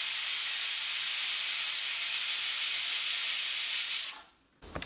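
Stovetop pressure cooker whistling: steam escaping past its weight valve in a loud, steady hiss that dies away about four seconds in. The whistle marks the chicken cooking under pressure, one of the four whistles counted to time it.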